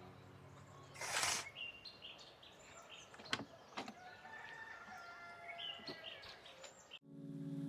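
Faint forest ambience of small birds chirping and twittering, with a brief loud whoosh of noise about a second in and two quick sharp sweeps around the middle.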